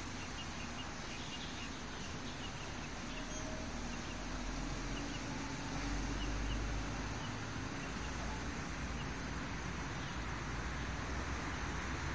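Steady outdoor background noise with a low rumble that swells slightly partway through, and faint, repeated bird chirps in the first few seconds.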